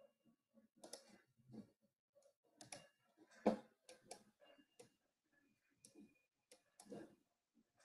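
Faint, scattered computer mouse clicks, about six of them, with one louder click a little before the midpoint, amid near silence.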